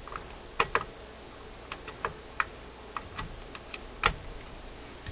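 Irregular light clicks and taps of hands handling wires and parts in a metal amplifier chassis, with the sharpest click about four seconds in.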